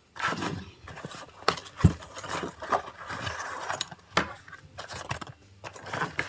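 Small bike saddle bag and the tools in it being handled: a run of clicks, scrapes and rattles, with one heavier knock about two seconds in.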